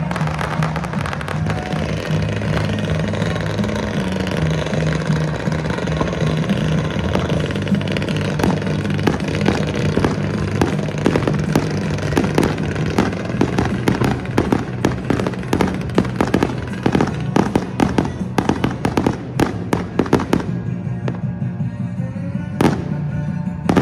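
Fireworks display over music: dense, rapid crackling and popping of aerial firework effects over a steady music track, thickening through the middle. About twenty seconds in the crackle thins out to a few separate bangs, with one louder bang near the end.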